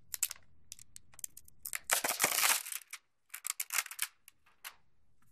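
Clear plastic wrapping crinkling as it is pulled off a small computer: scattered crackles, with a denser stretch of rustling about two seconds in and a few more crackles near the end.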